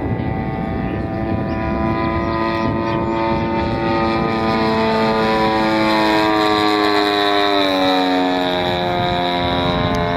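Radio-controlled model airplane's propeller engine running steadily in flight, passing close overhead: its note grows louder toward the middle and then drops in pitch about eight seconds in as it goes by.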